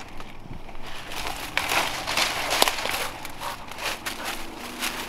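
Dry palmetto fronds and grass rustling and crackling as a tracking dog pushes through the brush around a downed deer. It is fairly quiet at first and gets busier and louder about a second and a half in.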